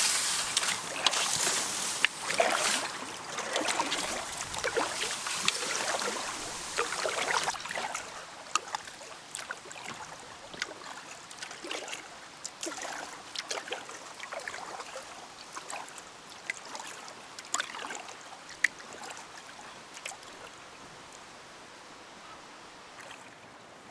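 Paddle strokes splashing and dripping in river water beside a packraft, louder for the first several seconds, then softer with scattered drips and small splashes.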